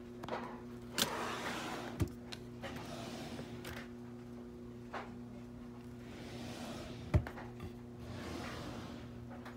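Drawers being slid open and shut, with sliding swishes and a few sharp knocks as they stop; the loudest knock comes about seven seconds in. A steady low hum runs underneath.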